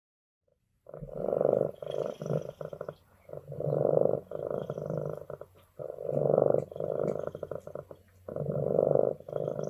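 Domestic cat purring, swelling and fading with each breath in and out, about one breath every two and a half seconds. It starts about a second in.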